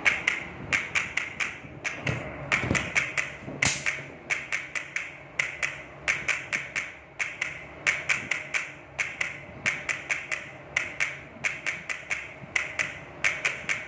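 A fast run of sharp taps, about three or four a second in uneven groups, with a couple of deeper thuds two to three seconds in.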